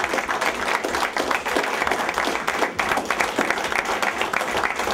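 A small group of people applauding, dense steady hand-clapping without a break.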